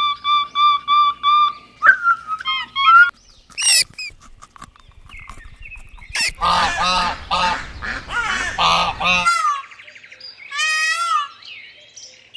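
Geese honking in a series of calls. It opens with a quick run of five short, even honks, and a denser stretch of overlapping calls comes in the middle.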